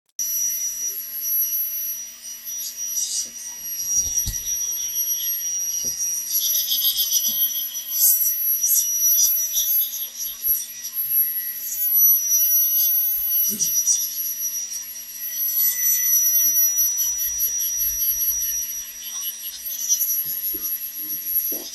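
Steady hissing airflow with a high whine, typical of a hot-air rework station, with scattered scraping and rubbing while a phone's audio IC is refitted to the board.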